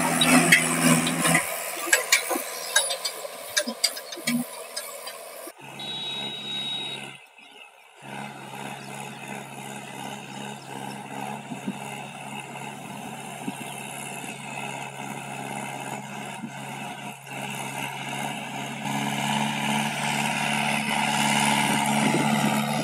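Mahindra 575 DI tractor's diesel engine pulling a heavily loaded trolley, running steadily under load. It is loud and close at first, then more distant for most of the time, growing louder again toward the end.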